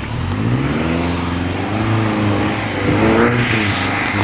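Off-road 4x4's engine revving under load as it pulls through deep mud. Its pitch climbs steadily for about three seconds and then drops back.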